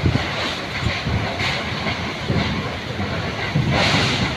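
Heavy wind gusting across the microphone: a loud steady rush and hiss with irregular low buffeting.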